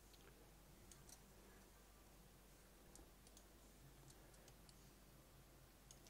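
Near silence with a few faint, scattered computer mouse clicks over a low steady hum.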